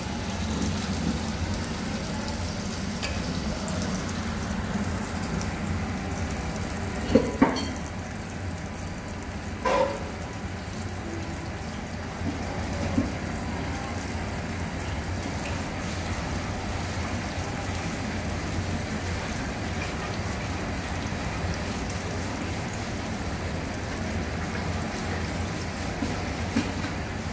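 Goat udder pieces deep-frying in a pot of hot oil: a steady sizzle and crackle. A few sharp knocks about seven and ten seconds in.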